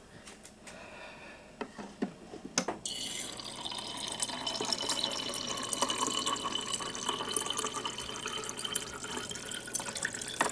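Refrigerator door dispenser running into a cup for about eight seconds, a steady rush with a low hum, starting about three seconds in after a few light clicks.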